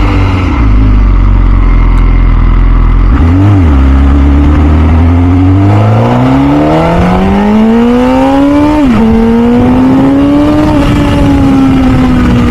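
The 2006 MV Agusta F4 CC's 1078 cc inline-four runs at low revs, with a quick throttle blip about three and a half seconds in. It then revs up in a long rising pull as the bike accelerates. The pitch drops sharply at an upshift about nine seconds in, climbs again, and eases off near the end.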